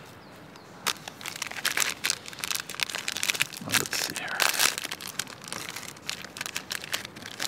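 Plastic wrapper of a Wasa Sandwich crispbread snack crinkling and rustling as it is handled and opened, a dense run of crackles starting about a second in.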